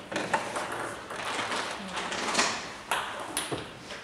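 Table tennis balls clicking off bats and tables: irregular sharp ticks, several a second at times, over a steady hall hiss.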